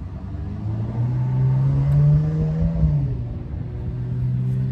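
Car engine running, its note rising to a peak about two seconds in and dropping back about a second later.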